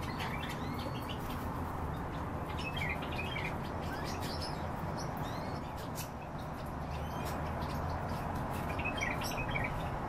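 Bee-eaters giving short, high chirping calls now and then: one about a second in, a small cluster around three seconds, one around five seconds and another cluster near the end. Under the calls there is a low steady hum.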